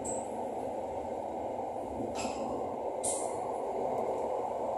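Steady running noise inside an SRT Light Red Line electric commuter train moving along its elevated track, with two brief hisses about two and three seconds in.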